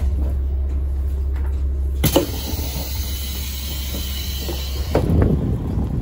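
KiHa 40 diesel railcar's engine idling with a steady low drone. About two seconds in, compressed air releases with a sudden sharp hiss lasting about three seconds, then the engine's rumble grows louder near the end.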